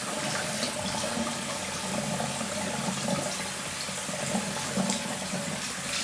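Water running steadily from a tap into a sink, with a few faint ticks over it.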